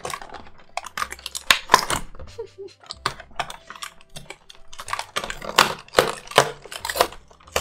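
Fingernails clicking and scratching on a cardboard advent calendar box while picking open a perforated door: a rapid, irregular run of sharp taps and clicks.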